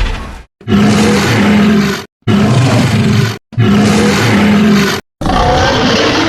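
Loud, harsh monster roar sound effects, one after another: each roar lasts about a second and a half and cuts off into a brief dead silence before the next, with the same roar clip heard more than once.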